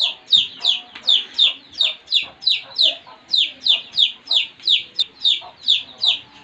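A baby chick peeping loudly and without a break, about three short falling peeps a second: the steady distress peeping of a lone chick being chased.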